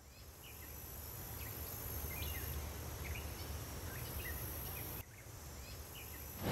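Faint outdoor ambience: a steady low hiss with small, high chirps recurring every half second or so, like insects. The background changes abruptly about five seconds in.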